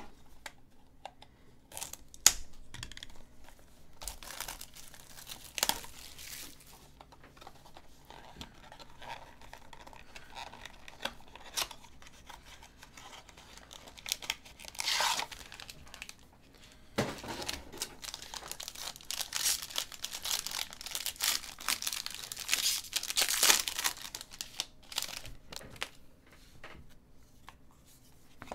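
A trading-card box and its foil-wrapped pack being torn open and crinkled by hand. Scattered rips and rustles, a sharp rip about halfway through, then several seconds of dense crinkling and tearing.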